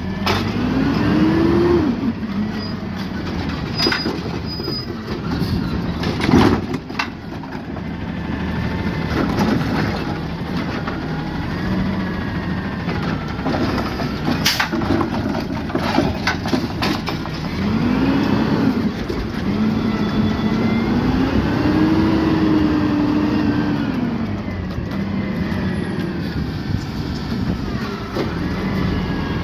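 Peterbilt 520 refuse truck with a Rapid Rail automated side-loader arm working, its engine and hydraulics rising and falling in pitch again and again, with several sharp knocks and clatter from the cart and recyclables.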